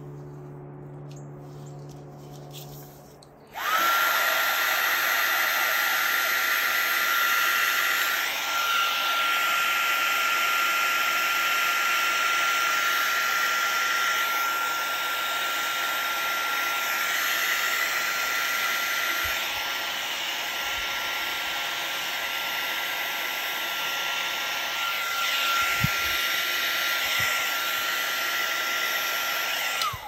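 Wagner HT400 heat gun switched on a few seconds in, its fan blowing hot air steadily with a constant high whine, then switched off abruptly at the end. It is pushing white epoxy resin into lacy ocean-wave cells.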